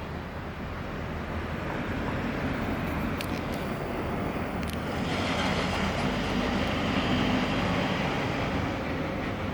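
Vehicle noise: a steady rumble that swells over several seconds and eases off near the end.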